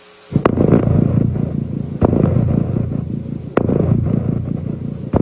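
Opening of a dark sound-design dance soundtrack over a venue sound system: a loud, dense low rumble with a sharp hit about every one and a half seconds, starting suddenly after a moment of silence.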